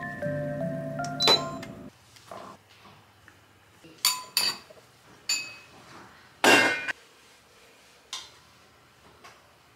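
Background music that cuts off about two seconds in, followed by a metal spoon clinking against a ceramic bowl several times. The loudest clink comes near the middle, and the strikes are spaced a second or so apart.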